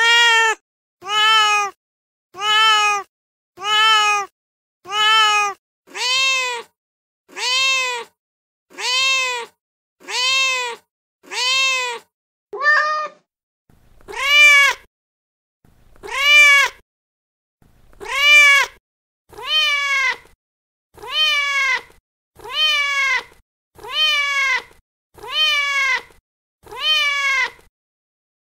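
Recorded domestic cat meows played from a cat-sounds app: a short meow that rises and falls in pitch, repeated at an even pace of about one every 0.7 seconds. Near the middle the pace breaks for a brief higher call and three louder meows about two seconds apart, then the even repeats resume.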